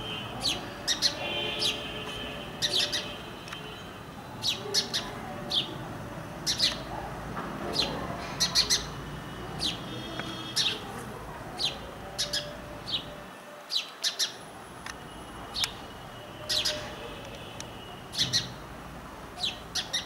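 Indian house sparrows chirping: short, sharp cheeps repeated irregularly, about one or two a second.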